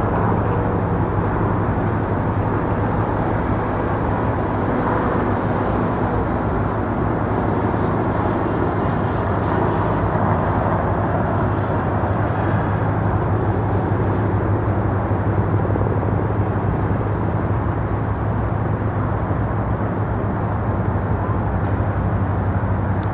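Helicopter in flight: a steady drone with a constant low hum.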